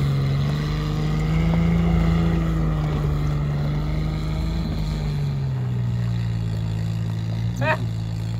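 Engine of a tracked all-terrain vehicle running under load as it crawls across the marsh. Its revs rise a little about a second in and ease off about five seconds in.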